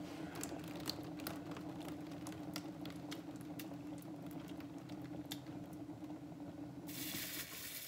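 Paint spinner turning a freshly poured acrylic painting, giving a steady hum at one pitch with scattered light ticks. A brief hiss comes near the end, and the hum stops as the spin is brought to rest.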